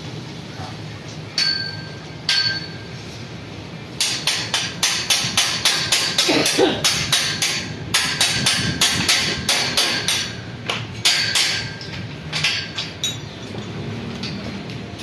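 Metal-on-metal knocking on a steel scaffolding pipe and clamp: two ringing clangs, then rapid knocks at about four a second for several seconds, as a scaffold clamp is worked onto the pipe.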